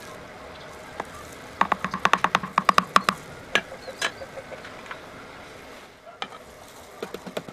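Plastic ladle stirring a liquid in a plastic bucket, with a quick run of about a dozen sharp plastic knocks after about a second and a half, then a few single clacks as the ladle is handled and set down.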